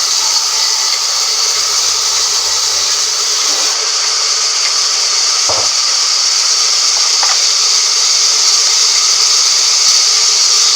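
Band sawmill running through timber, a loud steady high-pitched hiss, with a single brief knock about halfway through.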